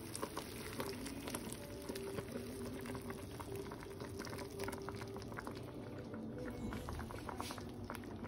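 A steel pot of chicken pieces simmering and bubbling as a thick blended sauce is poured into it from a blender jar, with soft wet crackles and small ticks.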